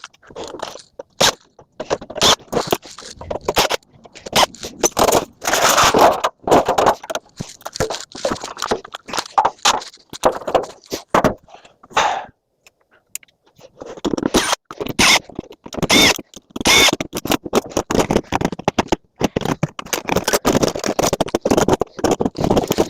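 Irregular metal clanks, scrapes and clicks of hand tools and metal parts being handled while an item is taken apart for scrap. There is a short pause about halfway, and a few ringing metal knocks follow.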